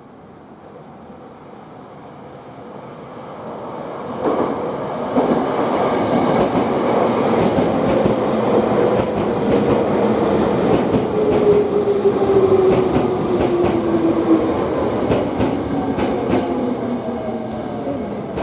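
Electric commuter train running past a station platform: the sound builds over the first four seconds, wheels click over rail joints, and a motor whine slowly falls in pitch before the sound eases near the end.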